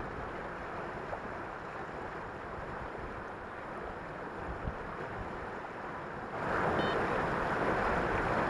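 Strong wind rushing over the microphone, mixed with river water washing against rocks; the rushing steps up noticeably louder about six seconds in and stays there.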